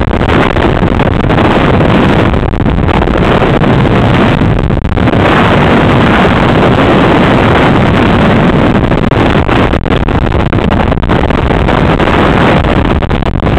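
Wind buffeting the microphone of a camera riding along on a moving tandem bicycle: a loud, steady rumble and hiss with no break.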